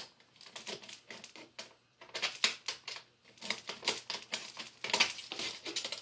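Aluminium-foil dryer vent tubing and its metal clamp being worked by hand and with a screwdriver at a coupling: rapid, irregular clicks and crinkles, busier in the second half.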